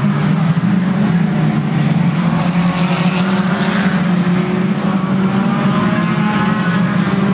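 Banger racing cars' engines running hard as the cars pass close by: a steady, loud engine drone, with engine pitch rising and falling about three to five seconds in.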